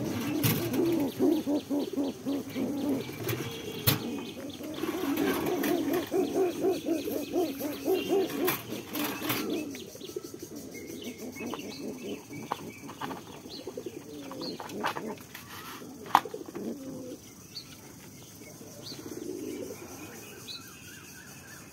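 Racing pigeons cooing: a long run of repeated low warbling coos for about the first ten seconds, then fainter, scattered cooing. A single sharp knock about sixteen seconds in is the loudest sound.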